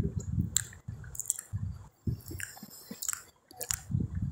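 Chewing and wet mouth sounds of someone eating chickpea rice pulao and okra curry by hand, with several short, sharp smacks or clicks between the chews.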